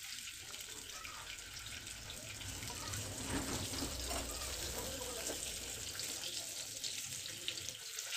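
Boiled eggs sizzling in a little hot oil in a small frying pan, a steady hiss, while a metal spoon turns them with light scraping clicks. They are nearly browned.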